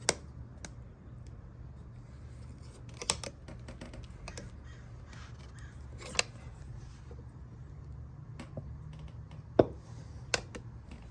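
Sharp metal clicks and clinks, about five spaced a few seconds apart, from hand tools and a 1/4-inch socket used to press a window crank knob's push-in bolt into place, over a low steady hum.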